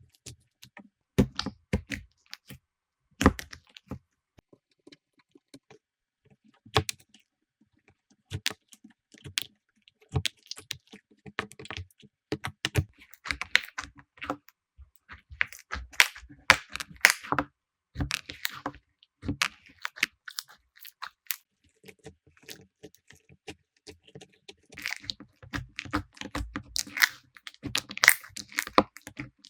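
Slime being squeezed, poked and stretched by hand, making irregular sticky pops, clicks and crackles that come in denser clusters at times.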